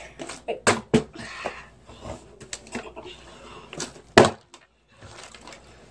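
Plastic water bottle with some water in it being flipped and landing, making several sharp knocks on a hard surface, the loudest about four seconds in.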